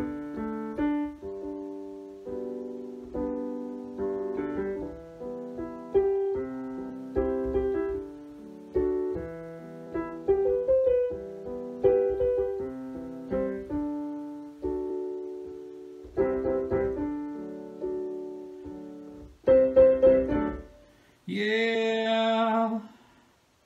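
Piano playing an instrumental passage between the sung verses of a song: chords and single notes, each struck and dying away. Near the end the piano drops out briefly and a held note with a wavering pitch comes in.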